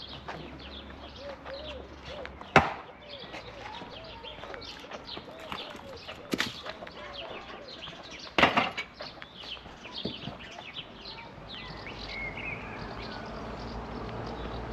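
Small birds chirping in quick, repeated calls, broken by three sharp knocks, the loudest about two and a half seconds in. Near the end a low rumble slowly builds.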